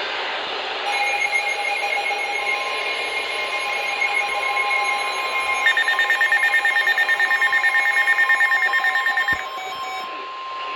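NOAA Weather Radio warning alarm tone, a steady 1050 Hz tone that begins about two seconds in and holds for about nine seconds, signalling that a warning message follows. Other electronic alert tones sound with it from about a second in, and a faster, louder pulsing beep joins midway and stops shortly before the end.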